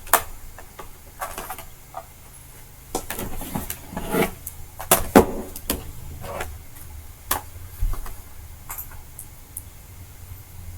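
Scattered small clicks, taps and knocks of hands and tools working on the plastic bottom case of an Acer Aspire 5 A514 laptop as its cover screws are undone and the cover is freed, with a few louder knocks around the middle.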